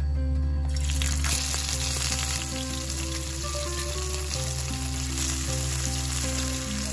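Pieces of scored climbing perch frying in hot cooking oil in a pan: a dense crackling sizzle that starts about a second in, when the fish goes into the oil. Background music with a steady bass line plays underneath.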